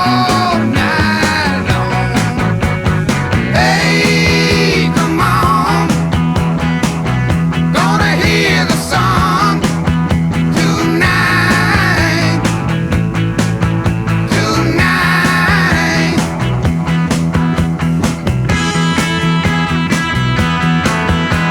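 Psychedelic rock music without vocals, its lead line bending in pitch in phrases over drums and a held low bass note.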